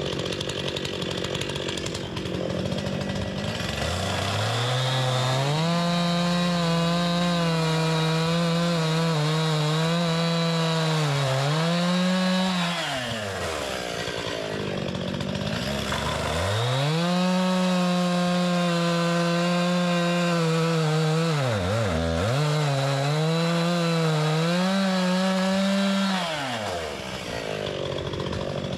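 Two-stroke Stihl chainsaw making two long full-throttle cuts through thick red oak slabs, each running close to ten seconds. The pitch sags as the chain loads in the wood, and the saw drops back to idle between the cuts and near the end. The chain is dull and due for replacement, so the saw cuts slowly through the big oak.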